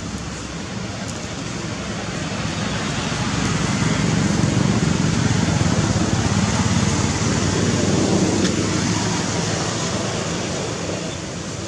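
Low rumbling background noise that swells over a few seconds and fades again.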